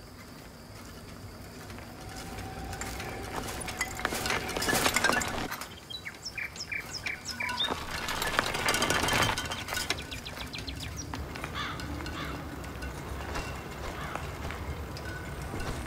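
A bicycle's tyres crunching over a gravel mountain track, loudest about four to five seconds in and again around eight to nine seconds. In between, a bird chirps a quick run of about five short notes.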